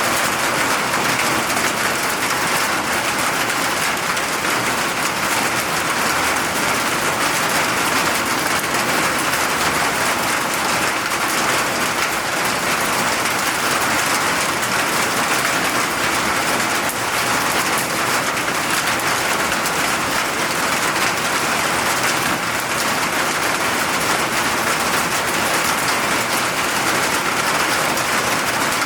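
Steady rain falling, a dense, even hiss with no changes in strength.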